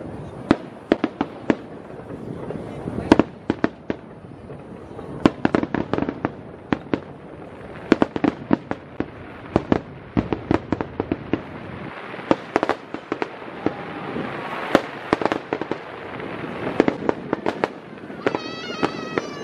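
Aerial fireworks shells bursting: many sharp cracks and pops in irregular succession over a steady crackling hiss from the spreading stars.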